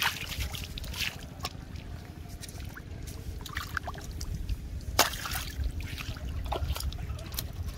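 A fish thrashing in shallow running floodwater, throwing up a series of sharp, irregular splashes, the loudest about five seconds in, over a steady low rumble.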